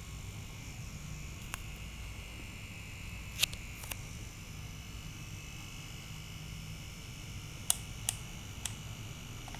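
Sharp clicks of a clamp meter's rotary selector dial being turned, a quick run of three near the end, with a few single clicks earlier, over a faint steady low hum.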